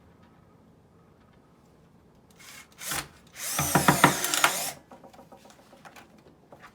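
Power drill driving a screw into a wooden block: a short spin about two and a half seconds in, then a run of about a second and a half with the motor pitch wavering, stopping near five seconds.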